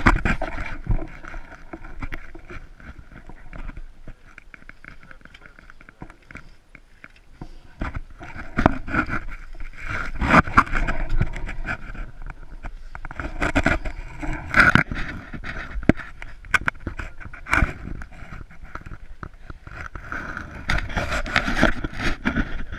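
Downhill mountain bike ridden hard over a rough dirt trail, heard from a bike-mounted camera: tyres on dirt, rattling and sharp knocks from the bumps. It comes in louder and quieter stretches.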